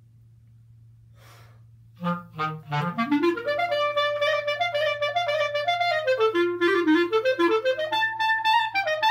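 Solo clarinet. After about two seconds of quiet it starts with a low trill, then a quick rising run into a fast melody of short, quickly changing notes.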